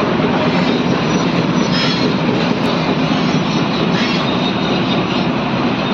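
Excavator's diesel engine running, a loud steady rumble.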